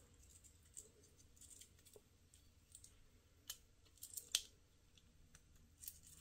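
Faint clicks and light taps of a steel fitted bracelet's curved end being worked into the lugs of a Samsung Galaxy Watch case, with a few sharper metal clicks a little past the middle.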